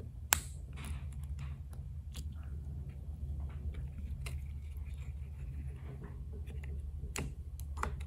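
Small sharp clicks and faint scraping as a pick works inside the rear of a plastic GPEC2 ECM wiring connector, pushing the terminal's detent aside to free the pin. The sharpest click comes about a third of a second in, with a few more later, over a steady low hum.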